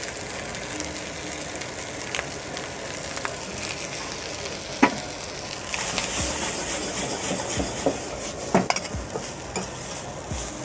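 Steel ladle stir-frying cooked rice and vegetables in a sizzling wok: a steady frying hiss with several sharp clinks of the ladle against the pan. The sizzle grows louder about six seconds in.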